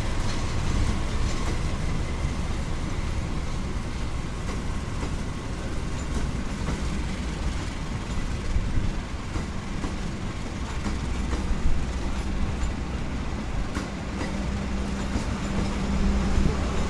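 Passenger coaches of a diesel-hauled train rolling past at speed: a steady rumble of wheels on rail with clickety-clack over the rail joints. A low steady hum grows near the end.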